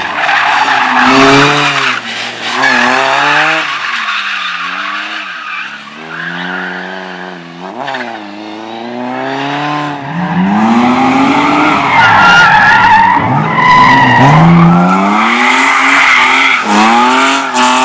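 A slalom race car driven hard through the cones: its engine revs up and falls back again and again through gear changes and braking, with tyres squealing, most of all in the second half.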